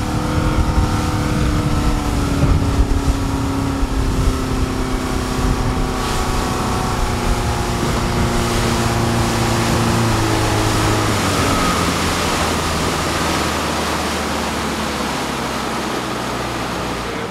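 Motorboat running at speed across open water: a steady engine drone under wind and rushing water. The engine's pitch slides slowly lower over the first ten seconds or so, and a deeper hum takes over after that.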